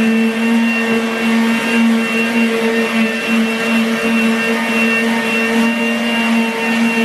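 Small corded electric sander running steadily against a ceiling, sanding off popcorn texture: a constant motor hum and whine over the hiss of the pad on the surface.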